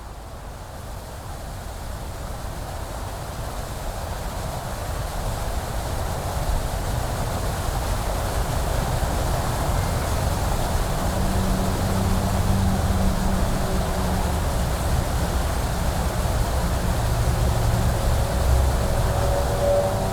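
Steady hum of expressway traffic, rising from faint to fairly loud over the first several seconds; from about halfway a low engine drone of a passing vehicle sits within the hum.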